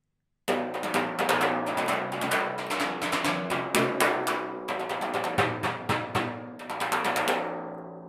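Vic Firth Dreadlocks brushes played in a fast, dense pattern of strokes on timpani, the drums ringing with low pitched tones under the brush noise. The playing starts about half a second in and stops near the end, leaving the drums ringing away.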